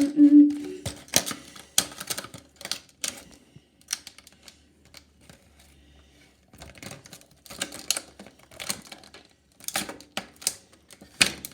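Scissors snipping and plastic toy packaging crackling as the package is cut open: irregular clicks and crinkles, easing off for a couple of seconds midway and then resuming.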